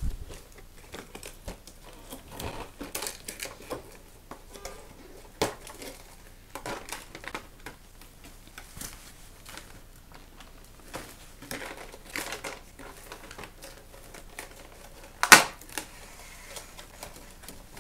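Stiff clear plastic packaging being pulled out of a cardboard toy box: irregular crinkling and crackling with scattered clicks, and one sharp, loud crack near the end.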